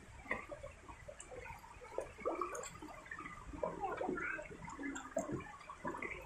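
A crowd of koi jostling and gulping at the water's surface, making many small, irregular splashes.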